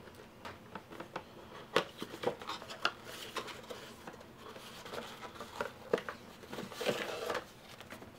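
A small cardboard game box being opened and its black plastic case slid out onto a wooden table: scattered taps, clicks and scrapes of cardboard and plastic, with a longer scraping rustle near the end.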